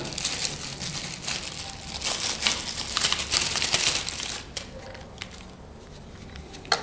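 Clear plastic bag crinkling and rustling as a bagged charger and its cable are handled, dying away about four and a half seconds in.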